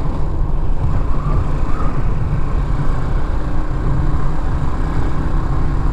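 Motorcycle cruising at a steady speed, its engine running evenly under a dense low rumble of wind buffeting the helmet-mounted microphone.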